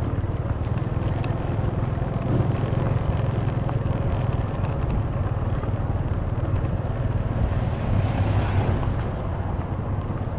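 Steady low rumble of a vehicle travelling over a rough, dusty construction road, with wind noise on the microphone. A brief swell of hiss comes a little after eight seconds in.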